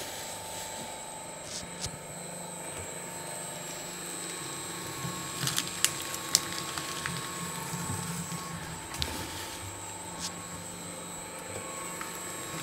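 Electric paper shredder running steadily in forward, shredding paper fed in to clear sticky residue from its cutters. A constant motor hum, with a few sharp clicks and ticks, most of them a little past the middle.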